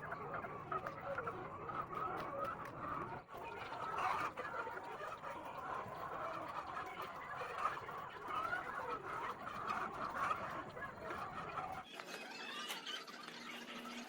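A flock of egg-laying hens clucking continuously, many birds at once.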